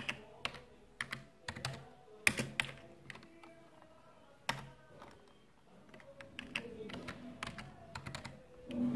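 Typing on a desktop computer keyboard: scattered, irregular keystroke clicks, thicker in the first few seconds and thinning out toward the end.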